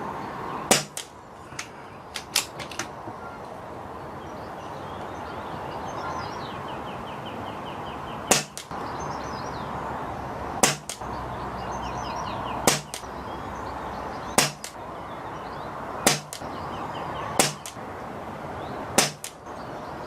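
Pre-charged pneumatic air rifle firing .177 pellets: eight sharp shots, most of them about one and a half to two seconds apart after a longer gap near the start, each followed a split second later by a fainter second click. There are a few lighter clicks early on, steady wind noise on the microphone, and faint bird chirps.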